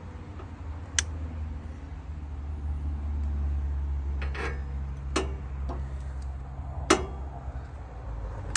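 Sharp, separate clicks as the burner of a two-burner gas cooktop is lit with a long-reach lighter and the control knob set to high, over a steady low rumble.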